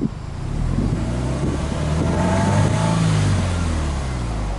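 Subaru Impreza WRX STi (GDB) 2.0-litre turbocharged flat-four revved once in neutral through its exhaust. The revs climb over about two seconds, peak a little past the middle, then fall back toward idle.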